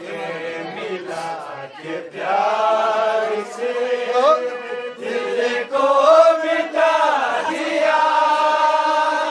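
A man singing an Urdu ghazal in long held, bending notes with ornamental glides, accompanied by a harmonium.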